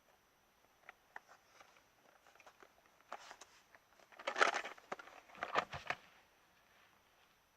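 Hands unpacking a parcel: scattered light clicks and taps, then three short bursts of rustling and crinkling about halfway through.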